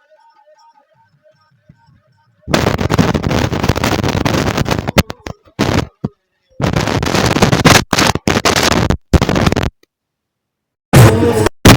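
Faint music gives way about two and a half seconds in to loud harsh static-like noise that cuts in and out abruptly several times: a fault in the sound.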